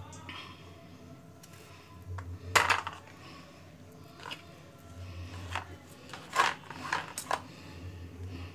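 A half apple being peeled by hand over a steel tray: scraping of the peeler, with a few sharp clinks of the metal utensils against the tray, the loudest about two and a half seconds in and several more toward the end.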